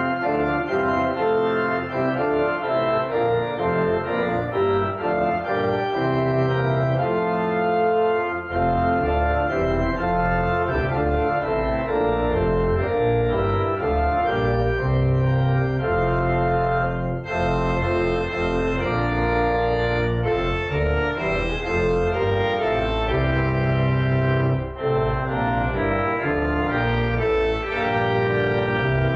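Church organ playing the closing voluntary in sustained full chords; a deep pedal bass comes in about eight seconds in.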